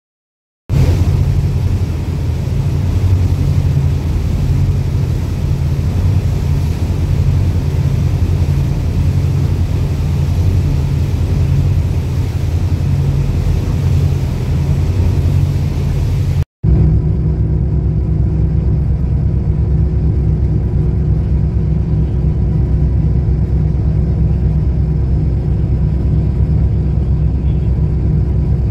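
Ferry engines running steadily, heard on board: a loud low drone mixed with the rush of wind and water from the wake. The sound cuts off abruptly about 16 seconds in and picks up again straight away with the same drone, now with a faint steady hum above it.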